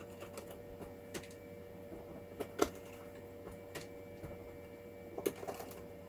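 Scattered light clicks and knocks of hands handling the plastic case of a Blackmagic DaVinci Resolve Speed Editor keyboard, the loudest about two and a half seconds in, over a steady low hum.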